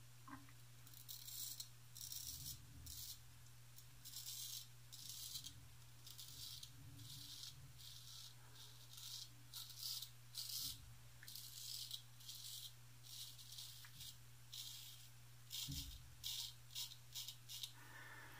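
Straight razor, a full hollow-ground Wade & Butcher 7/8, scraping through lathered beard stubble: a long run of short, crisp rasping strokes, some in quick clusters. A steady low hum runs underneath.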